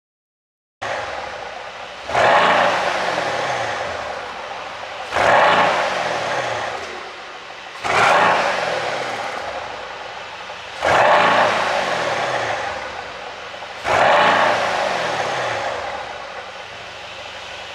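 Mercedes-AMG C63 S coupe's twin-turbo V8 revved in five sharp throttle blips about three seconds apart. Each rev falls back to idle over a couple of seconds with exhaust pops and crackles on the overrun.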